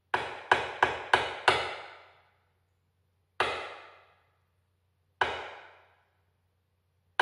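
Hyoshigi, a pair of wooden clappers, struck together: five quick claps in the first second and a half, then single claps about two seconds apart, each ringing briefly. This is the traditional kamishibai signal that the show is about to begin.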